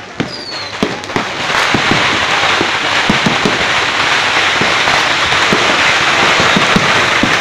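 Fireworks going off: a few separate bangs, then from about a second and a half in a dense, unbroken din with more bangs coming through it.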